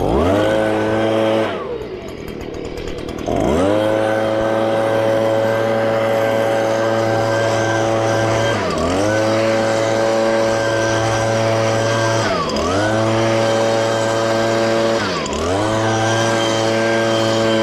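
A small engine on lawn-care equipment, revved up to a steady high speed and let off again. It drops to idle for a couple of seconds, comes back up, then dips briefly and climbs back three times, about every three to four seconds.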